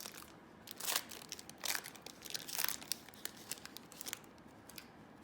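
Foil trading-card pack wrapper crinkling as the cards are handled, in a few short rustling bursts with small clicks.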